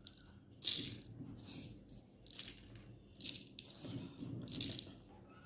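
Granulated sugar scooped up by hand and sprinkled over cooked vermicelli in a glass dish: several soft, grainy showers of falling grains.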